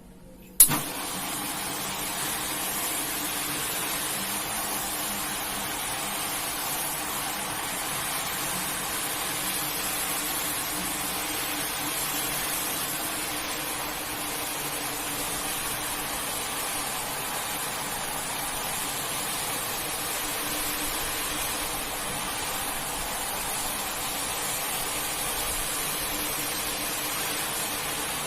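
Water spraying steadily under pressure, with a faint motor hum beneath, switched on abruptly with a click about half a second in.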